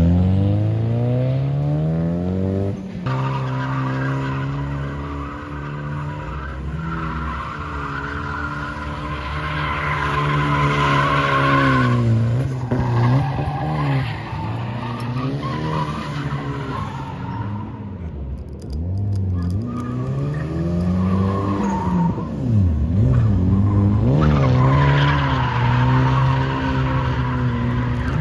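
Toyota Cressida's turbocharged 3S-GTE four-cylinder engine revving up and dropping back again and again as the car drifts, with tyres squealing for several seconds at a time.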